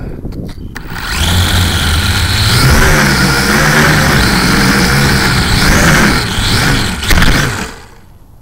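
LaTrax Alias quadcopter's motors and propellers spinning up about a second in and buzzing loudly, close to the on-board camera, their pitch rising and falling as the craft flies. Near the end there is a knock as it comes down in the grass, and the motors stop.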